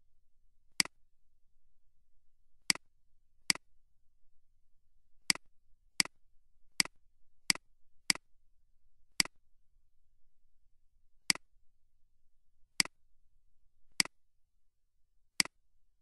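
Computer mouse button clicking: thirteen single sharp clicks, irregularly spaced, as drop-down menus and wizard buttons are clicked.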